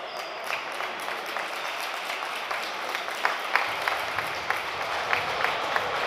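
Spectators applauding and clapping, a steady crowd hiss with a dozen or so sharp, irregular claps standing out.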